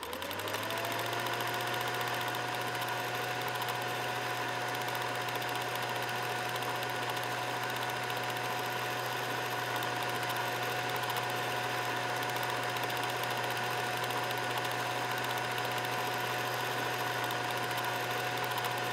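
Film projector starting up and running: a motor tone rises in pitch in the first second and then holds steady over a low hum and a fast, even rattle.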